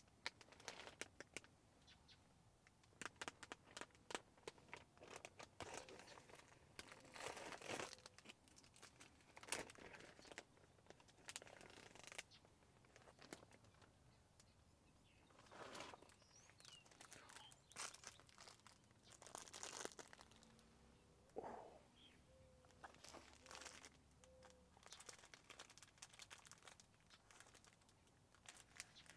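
Faint rustling and crinkling with scattered light clicks, in louder clusters several times over, and a few soft short chirps near the end.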